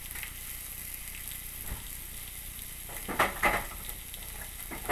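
Steaks sizzling steadily on a hot ridged cast iron grill pan, with their marinade and steak sauce frying on the iron. A few louder crackles come close together about three seconds in, and another near the end.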